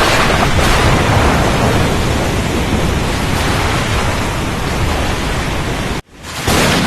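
Storm at sea: a loud, steady rush of rain, wind and heavy water with a deep rumble underneath. About six seconds in it cuts out almost completely and swells back within half a second.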